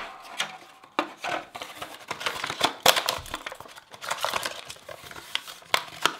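Packaging of a fingerboard truck set being handled and opened by hand: a cardboard sleeve and box, then a plastic pouch, crinkling and rustling with irregular small clicks and taps.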